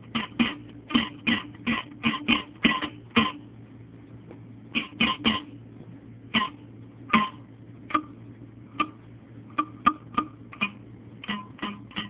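A Natty Daddy beer can played as an instrument: a quick, uneven string of short, sharp twanging notes, about two to three a second, with a brief pause about four seconds in. The pitch shifts from note to note like a rough tune.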